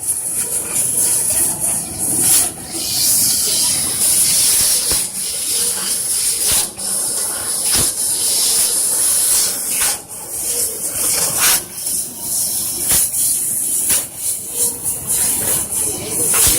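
Fiber laser cutting machine running: a steady, loud hiss of assist gas from the cutting head, with irregular sharp clicks.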